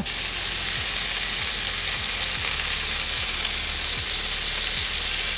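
Butter and olive oil sizzling steadily as they heat in a frying pan.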